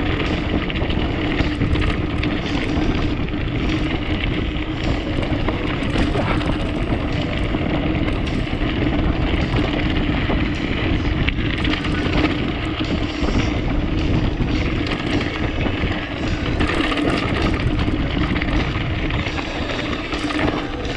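Mountain bike riding a dirt trail: steady wind rush on the action camera's microphone, with the knocking and rattling of the tyres and frame over the ground.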